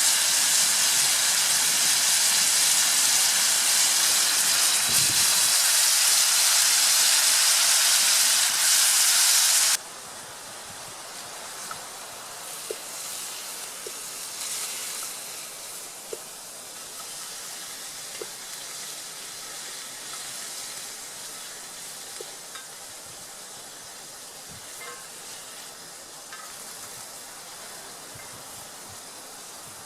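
Beef searing in a hot cast iron skillet over campfire coals: loud, steady sizzling that drops off abruptly about ten seconds in, then a much quieter sizzle with occasional small crackles.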